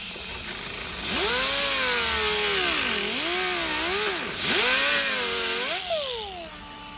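Small high-speed handheld power tool cutting plastic trim, its motor pitch sagging and recovering repeatedly as the cut loads it, then winding down near the end.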